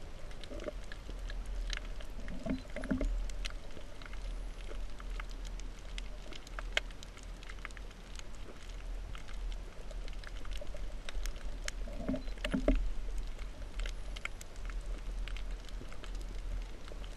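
Underwater reef ambience picked up by a camera: a steady low rumble of water with many scattered sharp clicks and crackles, and twice a short pair of low hums.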